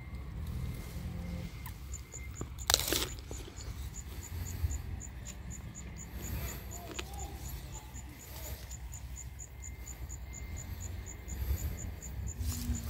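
An insect chirping in a steady high-pitched pulse, about four chirps a second, over a low rumble. A brief sharp rustle near three seconds in is the loudest moment.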